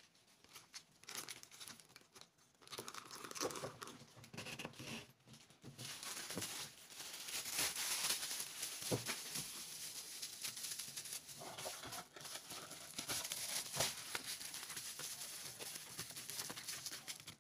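Plastic packaging rustling and crinkling as hands wrap bubble wrap around a sunglasses case, loudest in the middle, with a few sharp clicks. Near the end a cardboard box is folded shut around the wrapped case.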